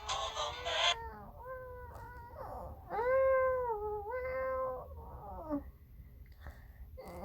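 A series of about five drawn-out, meow-like cries, each rising then falling in pitch. The first is harsh and hissy, and the loudest comes about three seconds in.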